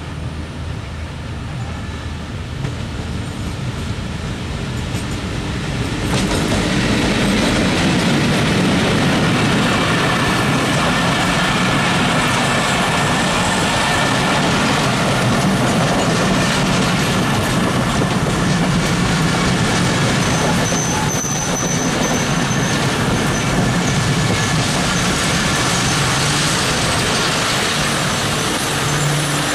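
A DLW WDM-2 diesel locomotive hauling an express passenger train, approaching with its engine running and growing louder, then passing close by about six seconds in. After that come the coaches rolling past on the rails at speed, loud and steady.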